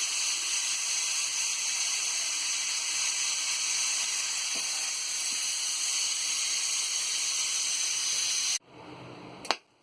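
Steam venting from a stovetop pressure cooker in a steady hiss as the leftover pressure is let out before opening. The hiss stops abruptly near the end, and a single sharp click follows.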